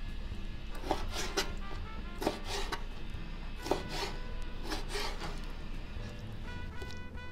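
A kitchen knife slicing raw chicken gizzards on a plastic cutting board: short sawing cuts in small clusters about a second apart, each ending against the board.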